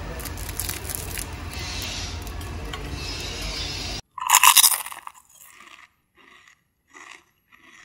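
A steady crackling, scraping noise with many small clicks for about four seconds, which cuts off abruptly. A short loud sound follows just after, repeating as fainter fading echoes.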